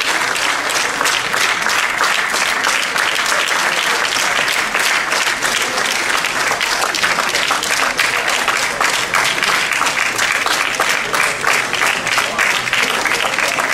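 A large audience applauding, many hands clapping together in a dense, steady stream.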